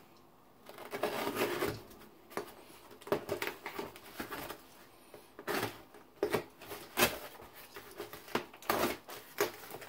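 Cardboard shipping box being opened by hand: irregular bouts of rustling, scraping and tearing, with sharp crackles here and there, as the flaps and tape are pulled apart.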